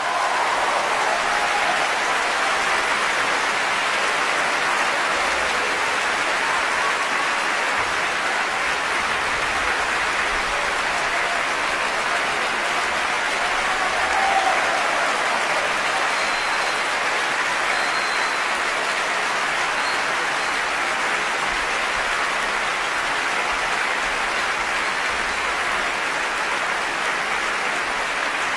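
Large concert-hall audience applauding steadily in a sustained ovation after an orchestral performance.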